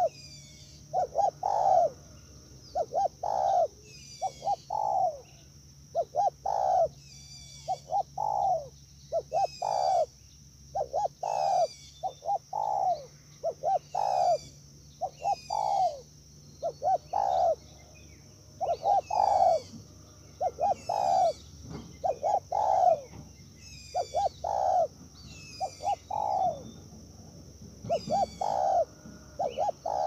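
Spotted doves cooing over and over, each phrase a few short coos followed by a longer one, repeating every second or two. A steady high-pitched drone and small birds chirping run underneath.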